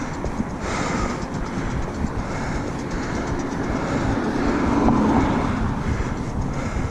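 Mountain bike ridden uphill on a dirt singletrack: a steady rumble and rattle of tyres and drivetrain, swelling a little about five seconds in.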